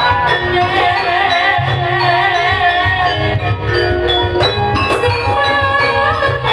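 Javanese gamelan music: bronze metallophones ringing held notes over a steady pulse of low drum beats, with a melody line that wavers with vibrato above them.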